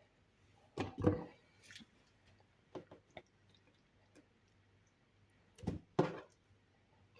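Pieces of cut fruit and vegetable dropped into a blender jar: soft, wet thuds, with two louder ones about a second in and near the end and a few lighter knocks between.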